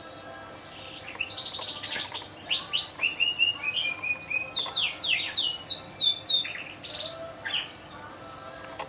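Yorkshire canary singing a phrase of about six seconds: a quick trill, then a held whistled note, then a run of falling whistled notes, over a faint steady hum.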